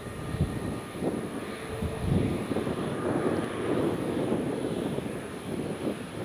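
Jet airliner engines running, a steady noisy rumble.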